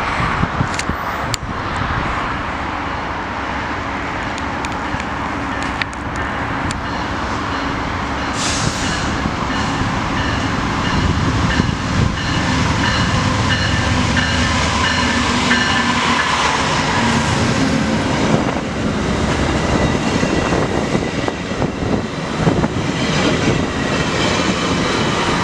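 VIA Rail passenger train running slowly through the station as it brakes to stop for a red signal: the diesel locomotive approaches, then the passenger cars roll past on the rails. The noise grows louder about halfway through, with thin steady high tones in the middle.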